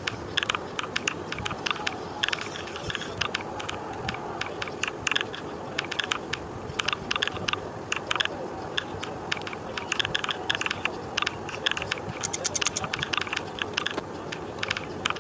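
Computer keyboard keys clicking in quick, uneven runs of touch typing, several keystrokes a second with short pauses, over a steady background noise.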